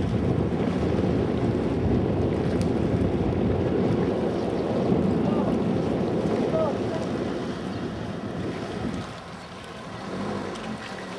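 Steady low rushing of wind and water, easing off after about eight seconds.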